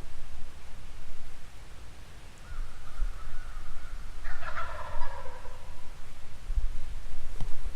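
A wild turkey gobbler gobbling once: one rattling gobble about four seconds in, over a steady low rumble, with a sharp click near the end.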